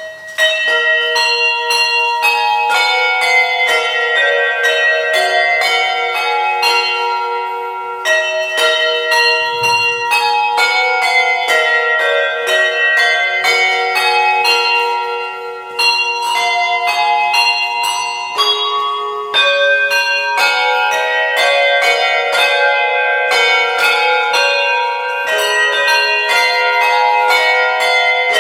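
Handbells playing a carol: a steady run of struck notes, each ringing on and overlapping the next, starting suddenly after a quiet moment, with short breaks between phrases.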